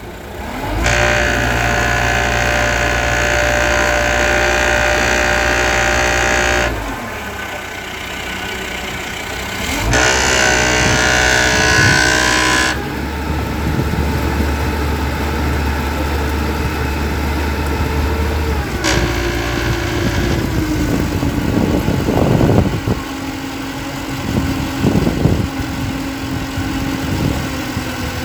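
Boat engine running under changing throttle while manoeuvring: two spells of higher revs, from about a second in to about seven seconds and again from about ten to thirteen seconds, then steadier lower running whose pitch steps down about two-thirds of the way through.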